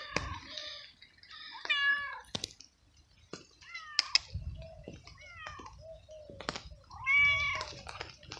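Stray tabby-and-white cat meowing loudly over and over: about four long meows that rise and fall in pitch, with shorter, lower mews between them, the loudest near the end. By its feeder's account they are the meows of a cold, hungry stray.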